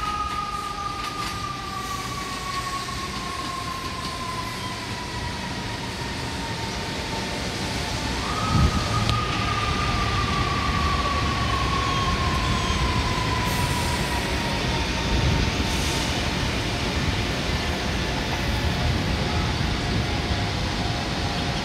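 An emergency-vehicle siren wails: one long tone that slowly falls, jumps back up about eight seconds in and falls again, over a steady low rumble of trains and city traffic.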